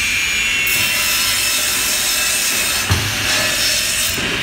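Wood cross-cutting saw running, its blade cutting through a board: a harsh, steady sawing hiss starts under a second in and stops shortly before the end, with one thump about three seconds in.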